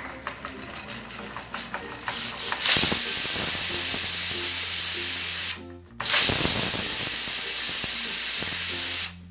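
Stainless steel pressure cooker releasing steam through its weighted whistle valve. A hiss with light ticks builds for a couple of seconds, then two loud, steady whistles of about three seconds each with a short break between. These are the whistles counted to know when to switch off the flame.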